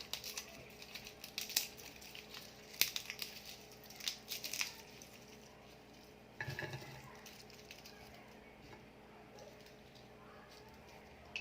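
Dry papery skin of a head of red garlic crackling and snapping as it is broken apart into cloves by hand: scattered short crackles over the first five seconds or so.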